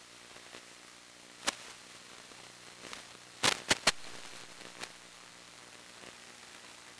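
Steady static hiss with a faint low hum, broken by sharp clicks: one about a second and a half in, a quick run of three around three and a half seconds, and one more near five seconds.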